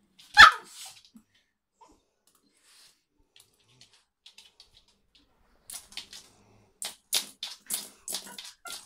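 A small dog pawing and nosing a plastic fidget spinner on a laminate floor: one sharp clack near the start, then from about halfway an irregular run of quick clicks and taps from claws and the spinner on the floor.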